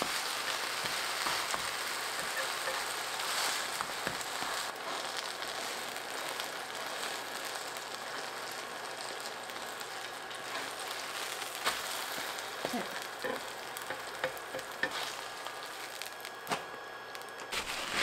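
Chive pancake sizzling in oil on a flat induction grill pan, its second side frying after the flip, with a few light taps and scrapes of slotted spatulas against the pan.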